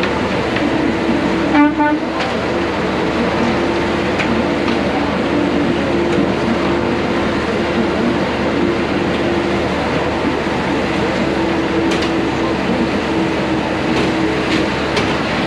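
Engine and drivetrain of a custom off-road tour truck running steadily under way, a dense rumble with a steady droning tone. A brief louder sound about a second and a half in.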